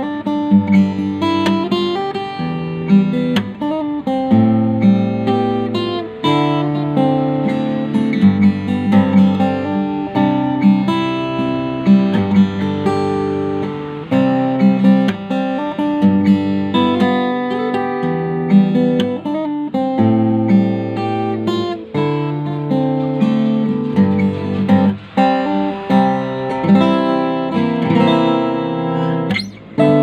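Yamaha FG-251B steel-string acoustic guitar played fingerstyle, picking a moving bass line under chords and melody notes. The playing breaks off briefly near the end.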